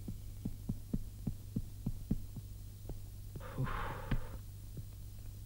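Footsteps on a wooden staircase, a steady run of dull thuds about three to four a second, over a steady low hum. A short rustling noise comes about three and a half seconds in.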